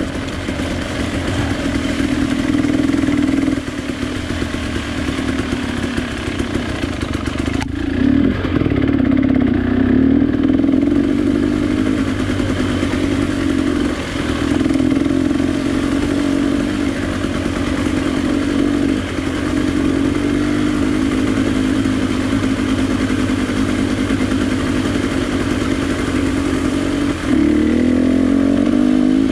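A vehicle engine running steadily at a moderate speed and easing up and down a little, with a sharp click about eight seconds in. Near the end the engine speeds up, rising in pitch.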